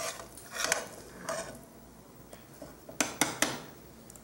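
Metal spoon scraping thick roux out of a skillet, a few short scrapes and clinks on the pan. The sharpest strokes come about three seconds in, after a quieter stretch.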